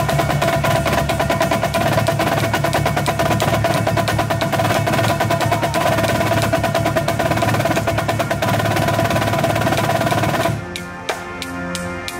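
Marching drumline of snare, tenor and bass drums playing a fast, dense warm-up exercise together. About ten and a half seconds in, the full sound drops to lighter, separate strokes with a few pitched drum notes.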